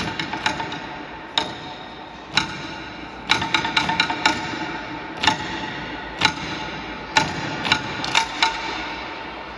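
Sharp percussion strikes, about a dozen, mostly a second or so apart, with a quick run of five around the middle of the passage.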